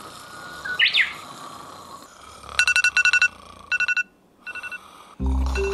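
iPhone wake-up alarm going off, repeating groups of short, high beeps that start about two and a half seconds in. A short rising chirp comes about a second in, and music comes in just before the end.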